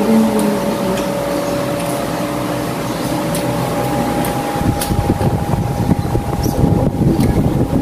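Steady mechanical hum holding two high steady tones, with a few light clinks of spoons and forks on plates. A low rumbling noise comes in about halfway through.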